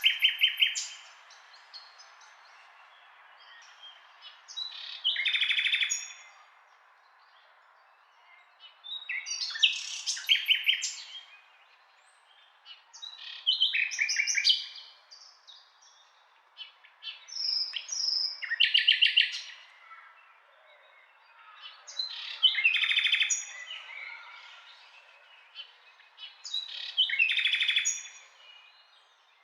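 A small songbird singing short, trilled song phrases, seven in all, about one every four seconds.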